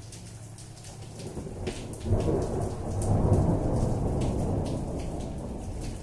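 Steady rain with individual drops striking close by. About two seconds in, a rolling peal of thunder comes in suddenly, swells, and then slowly dies away.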